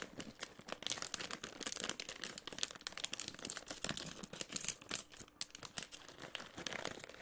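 A plastic Oreo snack bag crinkling with many quick, irregular crackles as it is handled and torn open by hand.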